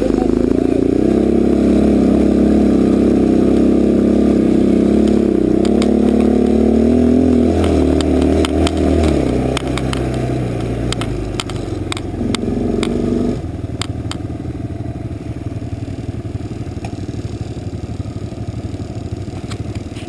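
Quad bike (ATV) engine running hard, its pitch rising and falling with the throttle, and loose parts clattering over rough ground. It eases off about nine seconds in and settles to a lower, steady idle from about thirteen seconds in.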